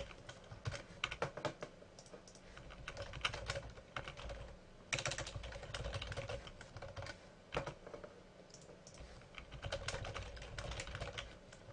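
Computer keyboard typing: quick runs of keystrokes with short pauses between them as router configuration commands are entered.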